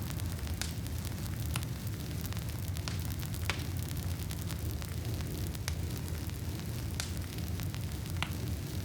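Wood campfire crackling with scattered sharp pops over a steady low rumble.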